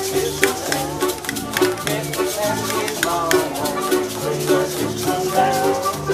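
Live old-time country song: an accordion playing with alternating bass notes and a held chord, a man singing, and a regular rattling percussion beat.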